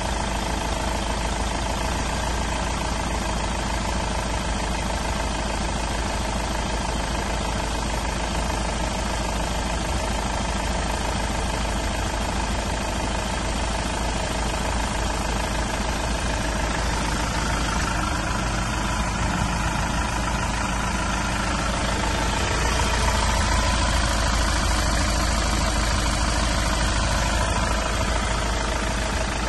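Iveco Daily 50C17's 3.0-litre four-cylinder turbodiesel idling steadily, a little louder for a few seconds past the middle.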